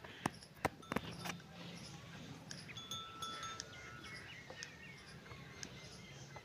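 Small metal bells on water buffaloes' neck collars clinking and tinkling faintly as the animals move their heads, with a few sharp clicks in the first second.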